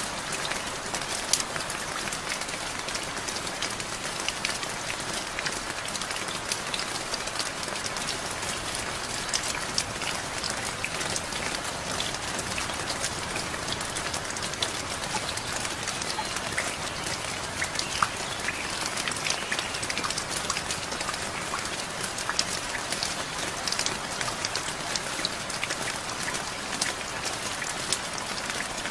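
Steady rain falling and pattering on a surface, with many close individual drops ticking sharply through it.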